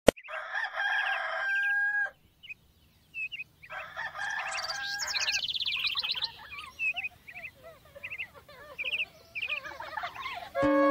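A rooster crowing twice, each crow about a second and a half long, followed by birds chirping in quick repeated calls.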